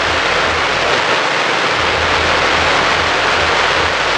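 Loud, continuous rushing hiss of a fireworks display, with many fountain and mine effects firing together and no single bang standing out.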